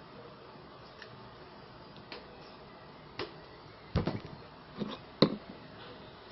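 A series of separate plastic clicks and knocks from a homemade PVC airgun being handled, a few light ones at first and a heavier clattering cluster about four seconds in, with one sharp crack a second later.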